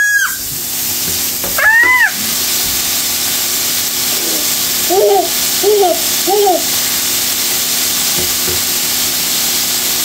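A baby squealing and babbling in short arching cries: a high squeal at the start, another about two seconds in, and three short lower calls between five and six and a half seconds. Underneath is the steady sizzle of meat frying in a pan.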